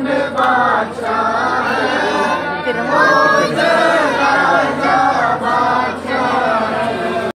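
Many voices singing together at once, their pitches overlapping, over a crowd's din.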